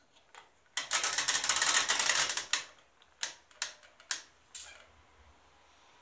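Programme selector dial of a 1980 Candy Primato washing machine being turned by hand: a fast run of ratcheting clicks for about two seconds, then four single clicks as the dial steps on to programme 4.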